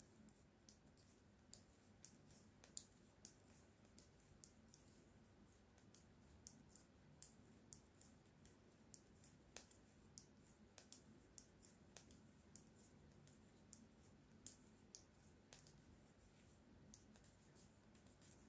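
Faint, irregular clicking of knitting needles as stitches are worked, a light click about once or twice a second.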